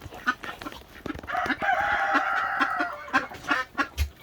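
Chickens clucking, with a rooster crowing once in one long call of about a second and a half.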